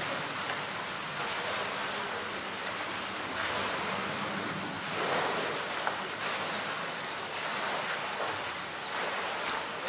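A steady high, buzzing drone of a summer cicada chorus, with a faint knock and scrapes from a plastic drum being pushed about on concrete.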